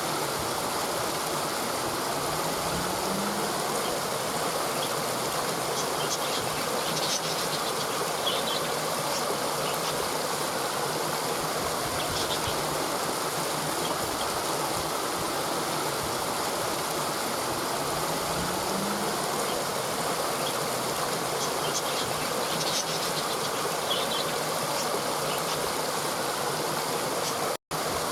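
Waterfall rushing steadily, an even wash of falling water, with faint high chirps now and then. The sound cuts out for an instant near the end.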